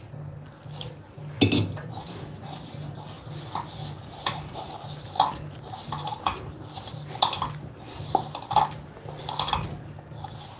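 Hands mixing flour and water into puri dough in a bowl: irregular scraping and small clicks against the bowl, over a steady low hum. A small steel water pot is set down with a knock about a second and a half in, the loudest sound.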